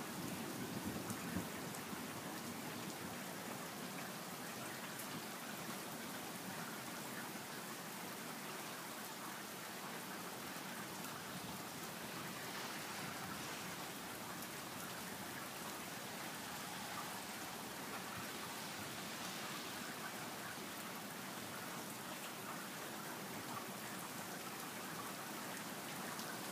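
Steady heavy rain falling and hitting the ground during a thunderstorm, with the low rumble of thunder dying away in the first two seconds.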